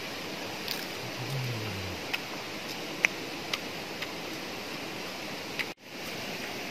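Steady rush of a forest stream with scattered small clicks, and a short low hummed "mmm" from a man eating about a second in. The sound drops out for a moment near the end.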